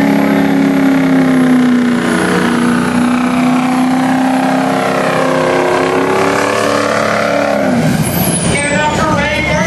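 A pulling truck's engine held at high revs under load, its pitch wavering slightly, then letting off about eight seconds in.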